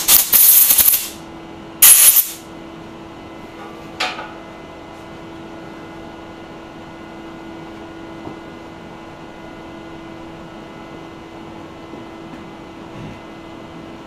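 Two blasts of compressed air from a shop blow gun, the first about a second long and the second shorter about two seconds in, clearing water out of the air hose. Then a click and a faint steady hum.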